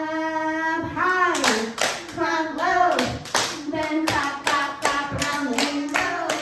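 Several people clapping along in a steady beat, about two claps a second, while a woman sings, holding a long note at the start.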